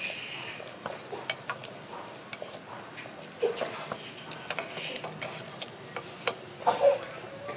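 Wooden chopsticks clicking and tapping against the rim and inside of a clay pot as they push herbs into the hot soup: irregular light clicks, with the loudest cluster near the end.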